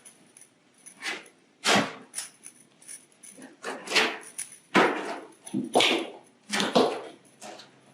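CNC engraver's gantry and parts being slid into their storage case: a series of short, irregular scrapes and knocks.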